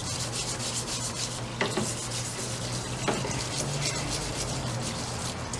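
Parts washer running: a steady pump hum under water-based cleaner streaming and splashing in the tub, with a couple of light knocks of metal parts.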